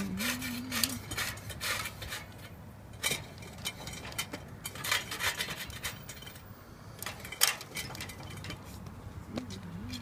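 Irregular metal clicks and scraping from a 1984 Kero-Sun Omni 85 kerosene heater as its burner mechanism is worked back and forth by hand just after the wick has been lit.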